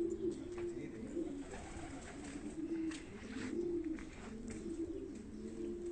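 Domestic pigeons cooing, one low rolling coo after another without a break, with faint clicks and taps behind them.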